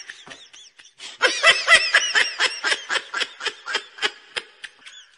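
Canned laughter sound effect: rapid, high-pitched cackling laughs in quick repeated syllables, pausing briefly and starting again about a second in, then tailing off near the end.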